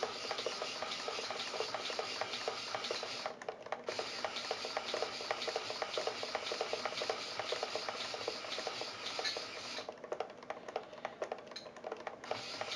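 Two small RC servos chattering and whirring as they drive the model's control surfaces back and forth on a low supply voltage, moving with less power. About ten seconds in they mostly fall silent as the Spektrum AR410 receiver loses its link at about 2.6 volts.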